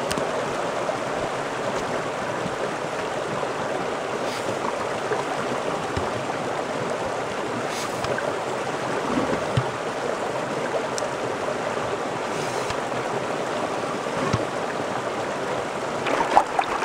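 Creek water running over rocks, a steady rush, with a few light knocks and splashes scattered through it and a short cluster of louder splashes near the end.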